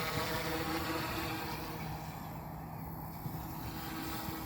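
OMPHobby M2 Evo electric RC helicopter hovering in to land: a steady whine from the motor and rotor, its pitch shifting slightly as the pilot adjusts.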